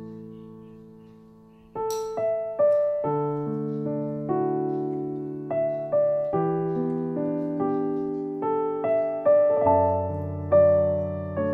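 Background music on solo piano: a held chord fades away over the first two seconds, then a slow, gentle run of single notes and chords resumes.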